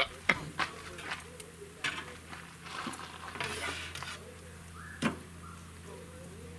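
Metal grill tongs clacking against the grill grate and an aluminum sheet pan, a handful of sharp clicks as a bacon-wrapped turkey bite is lifted onto the pan, over the sizzle of the grill and a low steady hum.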